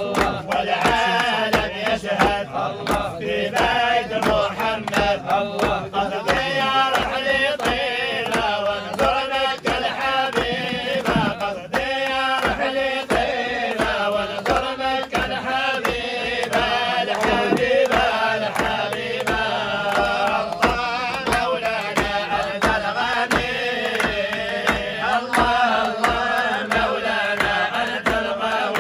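A group of men chanting an Arabic dhikr together, with hand claps keeping a steady beat.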